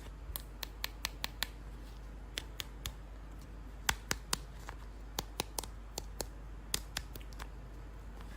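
A string of sharp, irregular clicks and snips from hands unboxing plastic action figures, coming in small clusters of a few clicks each.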